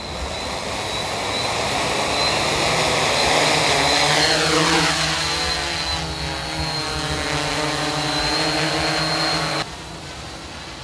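Hexacopter's six electric motors and propellers buzzing, with a steady high whine, as it lifts off and climbs away; the sound grows louder over the first few seconds and the pitch sweeps down about four seconds in as it flies past. The level drops suddenly near the end.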